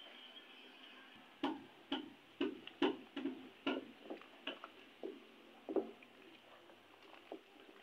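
Wooden spatula knocking against the side of a stainless-steel pot while stirring a thick gelatin mixture: irregular light taps, about two a second, starting a second and a half in and thinning out after about six seconds.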